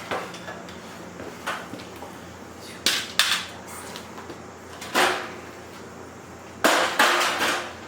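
Separate knocks and clunks of wooden boards and tools being handled, about six in all, the loudest two about five seconds in and near the end.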